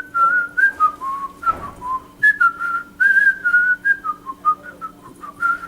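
A person whistling a tune: a quick string of short clear notes that step up and down in pitch.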